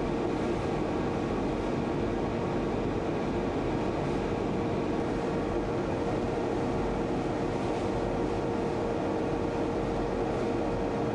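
Steady machine hum with a constant mid-pitched tone over an even rushing noise, unchanging throughout.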